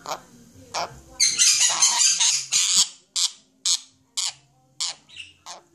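Pet parrots calling: a harsh, shrill screech lasting about two seconds, then a string of short, sharp squawks about twice a second.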